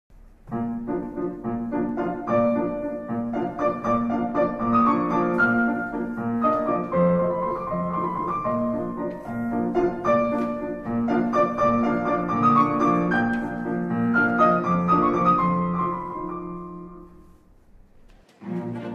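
Piano music: a slow piece of separate notes and chords that fades away near the end, with other music coming in just as it ends.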